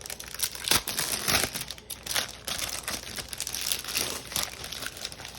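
Packaging crinkling and rustling as craft supplies are handled and unpacked, in irregular crackles with a few louder ones about a second in.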